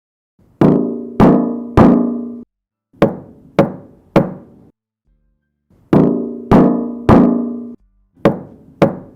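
Knocks on bare car sheet metal, in four sets of three. The first and third sets ring on with a hollow tone, while the second and fourth die away quickly.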